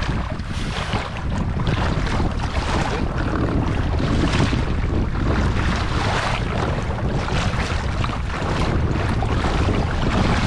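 Wind buffeting the microphone in a steady low rumble, with sea water lapping and splashing against a kayak hull in frequent small bursts.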